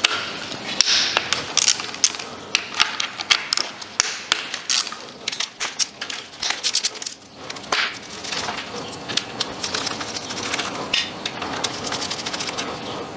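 Hand tools on an engine's top end: irregular metal clicks and clinks, then quick, even ratchet clicking in the second half as small 10 mm bolts are worked with a socket wrench.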